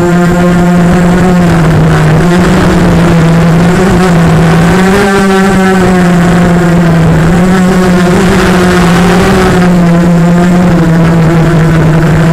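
A quadcopter's Cobra 1960kv brushless motors and propellers whining steadily, the pitch stepping up and down slightly with throttle changes and rising most about five seconds in.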